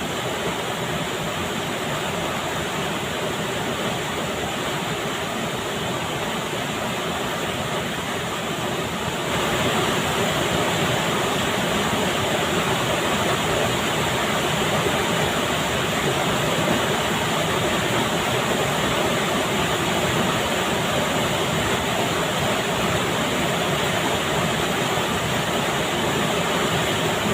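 River water rushing, a steady noise that gets a little louder about nine seconds in.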